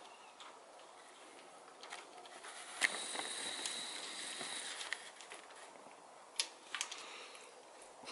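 Faint metal clicks and light scraping of rocker-arm bolts being threaded in by hand on a 6.7 Cummins cylinder head: a sharp click about three seconds in, about two seconds of faint scraping with a thin high whine, then a few more clicks near the end.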